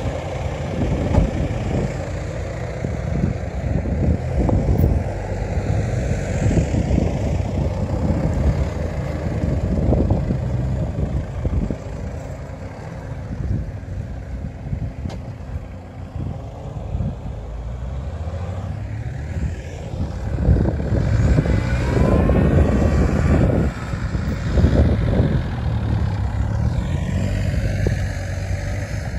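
Off-road 4x4 engines revving and working hard as the vehicles climb and drive through loose sand, with a heavy, uneven low rumble throughout and a rising rev about two-thirds of the way in.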